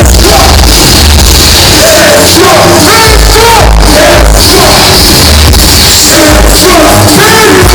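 Live rap performance: a loud, bass-heavy hip-hop beat with rapping voices over it, recorded in the venue close to full volume.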